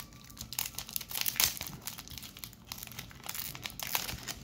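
Trading-card booster pack wrapper crinkling and crackling as it is picked and torn open by hand, in many quick irregular crackles.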